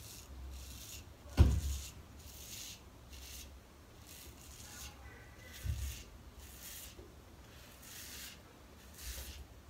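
Gem Micromatic Bullet Point single-edge safety razor scraping through a day's stubble on a lathered scalp, against the grain, in a series of short strokes. A dull thump about a second and a half in, and a smaller one near the six-second mark.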